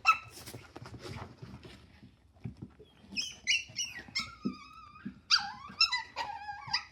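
Two Yorkiepoo puppies play-fighting: scuffling for the first couple of seconds, then a string of short, high-pitched whining cries from about three seconds in.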